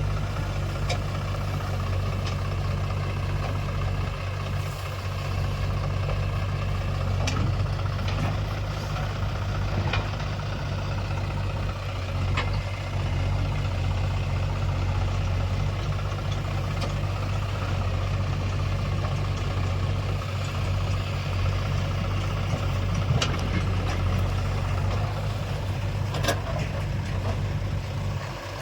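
Heavy diesel engine of a backhoe loader running steadily at an even pitch while digging and loading mud, with a few short sharp knocks scattered through.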